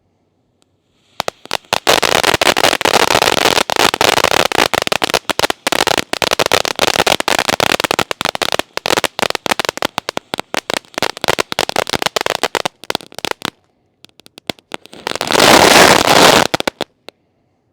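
Hybrid firework fountain (fountain aerial) going off: dense rapid crackling for about twelve seconds that stops abruptly, then, after a short gap, a louder rushing hiss lasting about two seconds near the end as the aerial stage fires.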